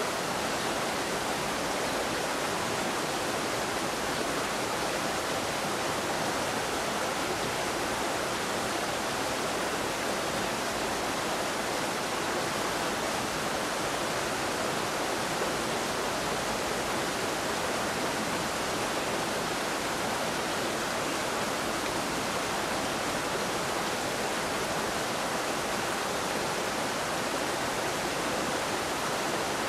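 A steady, even rushing noise, like a hiss, with no distinct sounds in it.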